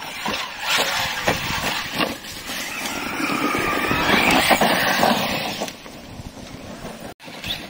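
Electric RC off-road truck driving on dirt: a motor whine mixed with tyre and gravel noise, loudest in the middle, then falling away. The sound cuts out for an instant near the end.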